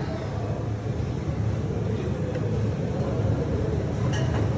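Steady low rumble of background room noise, with a light metallic clink near the end.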